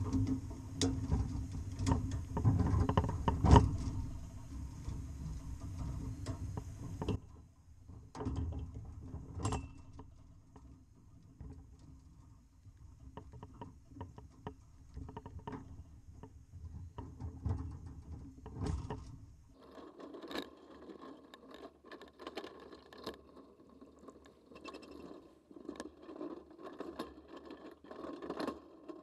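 Chain link fence and plastic quick-release bar clamps being worked by hand: scattered clicks, rattles and scrapes of wire and clamp parts as the clamps are repositioned on the fence. A low rumble underlies the first seven seconds or so.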